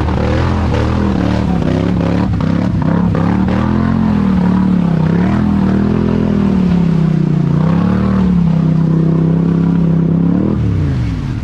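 Polaris Sportsman HighLifter ATV engine running under throttle through mud, its pitch rising and falling as the rider works the throttle, then dropping away near the end as it slows. Some clattering in the first few seconds.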